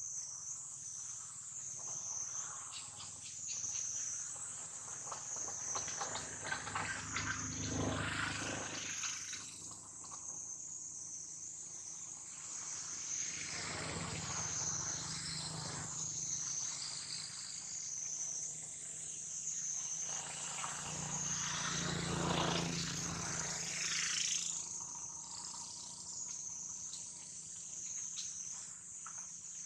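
Outdoor insect chorus: a steady high-pitched drone that pulses gently about once a second. Three times a louder rushing sound swells up and fades away over a few seconds, the last one the loudest.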